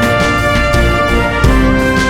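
Background music: an upbeat instrumental track with held synth or brass notes over a steady beat.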